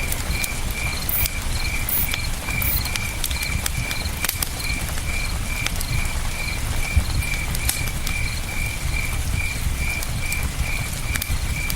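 Campfire crackling with scattered sharp pops over a low steady rush of river water. A cricket chirps evenly throughout, about three chirps a second.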